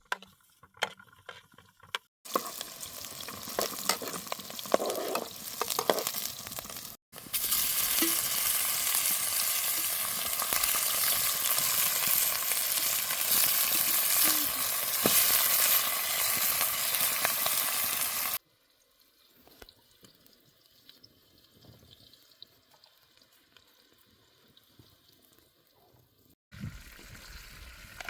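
Food frying and sizzling in a pan, heard as a steady hiss in several cut-together shots. It is loudest through the middle, then drops to faint clicks before picking up again near the end.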